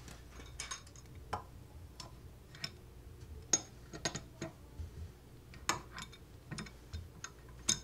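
Adjustable wrench working the plastic nut on a toilet seat's hinge bolt to loosen it: irregular light clicks and taps, about two or three a second.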